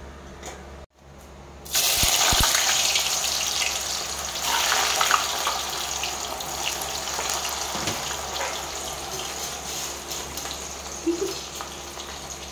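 A batch of chip slices sizzling in hot oil. The sizzle starts suddenly about two seconds in as the slices go in, with a couple of dull plops, then settles slowly as the frying carries on.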